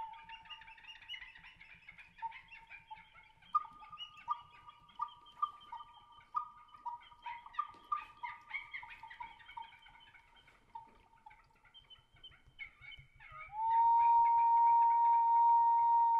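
Pre-Hispanic whistling wind instruments playing: a steady whistle tone, then bird-like warbling notes that flip between two close pitches, then a loud held whistle note that swells in about 13 seconds in.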